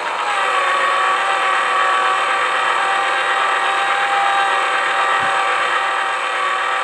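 Small electric motor of a plastic toy pottery wheel running at a steady speed, giving an even high whine.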